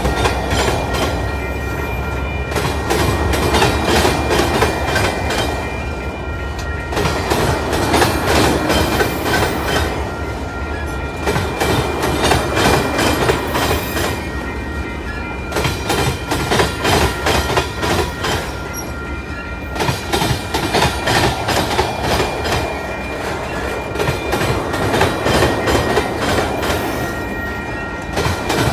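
Freight train rolling past close by, its wheels clacking over the rail joints without a break, swelling every couple of seconds as each car's wheel sets go by. A faint, steady high ringing runs under the clatter.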